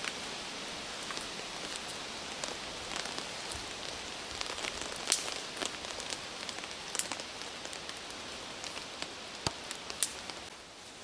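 Dry twigs and sticks clicking and knocking as they are laid by hand onto a base of thicker sticks, a sharp tick every second or so, over a steady outdoor hiss.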